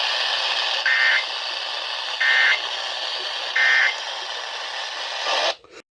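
Emergency Alert System end-of-message data bursts received over the radio: three short, raspy two-tone digital bursts about a second apart, marking the close of the required weekly test. They sit over steady radio hiss, and the sound cuts off suddenly near the end.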